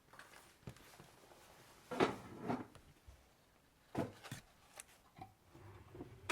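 Kitchen items being handled and set down: a few scattered knocks and clatters, the loudest about two seconds in and again at about four seconds, with small clicks between.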